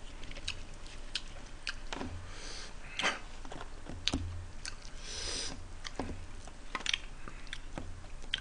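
Close-miked eating: chewing and mouth sounds, with sharp clicks from a metal fork working in a foil tray of spaghetti and a couple of short hissy bursts.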